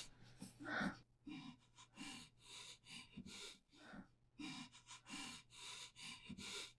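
Faint, quick sobbing breaths of a terrified woman with duct tape over her mouth, drawn in and out through her nose about twice a second.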